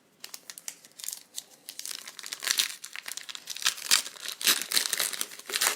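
Foil wrapper of a trading card pack crinkling and tearing as it is opened, a scatter of sharp crackles that grows busier about two seconds in.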